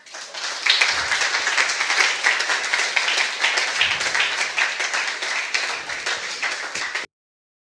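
Audience applauding, swelling over the first second, then cutting off suddenly about seven seconds in.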